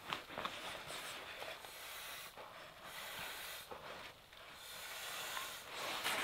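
Rustling and crinkling of an inflated sleeping pad's nylon fabric as it is lifted and shifted over the snow, with a few small knocks.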